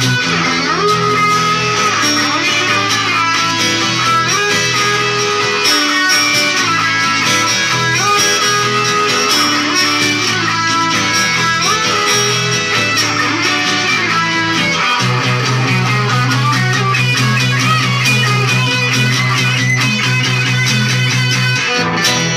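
Telecaster-style electric guitar played through an amplifier: a melodic lead with bent notes over sustained low notes.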